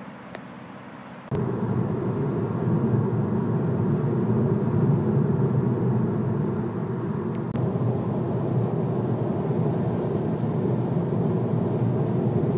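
Steady road and engine noise inside the cabin of a 2014 Volkswagen Jetta SE with a 1.8-litre turbo engine cruising at highway speed. It comes in suddenly about a second in, after a quiet opening.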